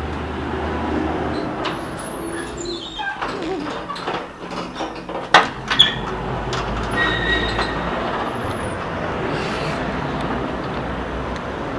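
Steady street traffic noise, with two sharp knocks about five and a half seconds in as a hand works the metal frame of a glass door.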